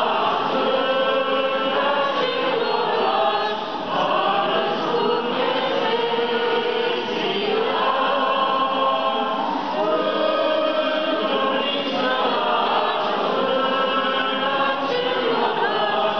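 Orthodox church choir singing liturgical chant, unaccompanied, several voices together in continuous phrases.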